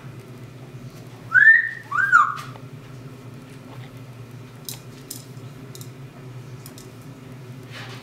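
Double yellow-headed Amazon parrot whistling two loud notes about a second and a half in: the first swoops up and falls away, the second is a shorter rise-and-fall.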